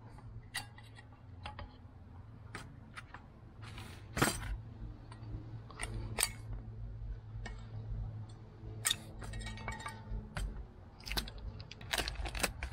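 Scattered metal clicks and clinks as the old anti-rattle hardware clips are worked off a brake pad carrier bracket by hand, with a louder knock about four seconds in and a quick run of crinkly clicks near the end as a hardware packet is torn open.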